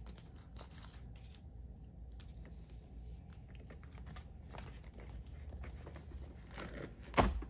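Clear plastic binder pocket pages and toploader card holders rustling and clicking softly as photocards are fitted into the pockets and the pages are handled. A sharper click comes near the end.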